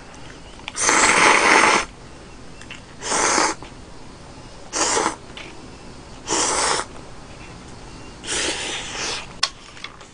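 A person slurping instant ramen noodles off chopsticks: five separate hissing slurps, the first near the start the longest and loudest, the others shorter.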